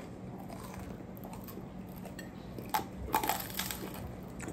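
Crusty bread crunching as it is bitten and torn, in a few short crackly bursts around three seconds in.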